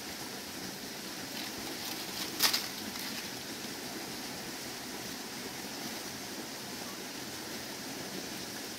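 Steady outdoor background hiss, with one short, sharp sound about two and a half seconds in.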